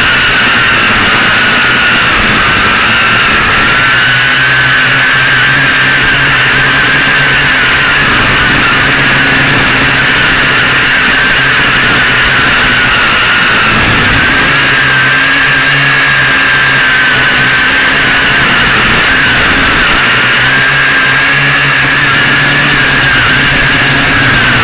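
FPV quadcopter's brushless motors and propellers whining, loud and close, the pitch wavering up and down as the throttle changes.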